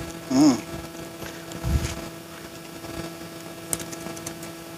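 Soft handling sounds of a nylon gill net as climbing perch are picked out of it by hand, with a brief voice-like sound just after the start, a thud about two seconds in and a click near the end, over a steady low hum.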